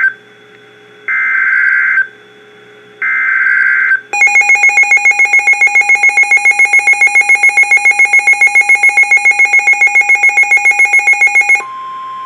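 NOAA Weather Radio Emergency Alert System alert: the SAME digital header sounds as harsh screeching data bursts about a second long with second-long gaps, two of them after one that ends right at the start. About four seconds in, a loud electronic alarm pulses rapidly, about seven beeps a second, for some seven seconds, then gives way near the end to a single steady warning tone.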